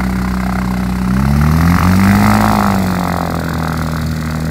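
Homebuilt light aircraft's propeller engine running as the plane taxis past on grass. The engine note climbs about a second in, peaks around two seconds, then eases back down.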